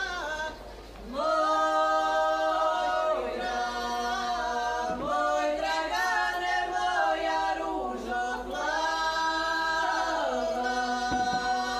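Women's group singing a traditional Croatian folk song unaccompanied, several voices together holding long notes in phrases of a few seconds, with short breaks between them.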